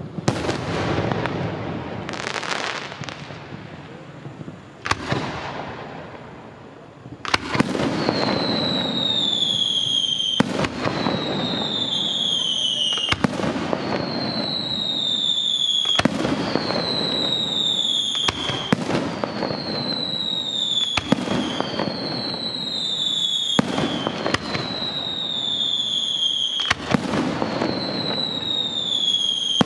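Aerial fireworks display: loud bangs of bursting shells, a couple at first, then from about seven seconds in a regular bang every two and a half to three seconds. Each of the regular bangs is followed by a whistle that falls in pitch for about two seconds.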